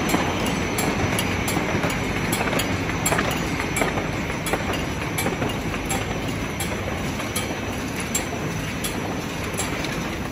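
Carton folder-gluer machine running: a steady mechanical clatter of belts and rollers over a low hum, with regular light clicks repeating.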